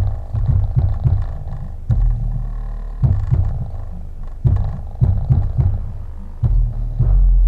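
Crowson tactile bass actuators shaking a leather home-theater seat, heard as a low buzzing rumble that pulses with the song's bass beat, with longer held bass notes about two seconds in and again near the end.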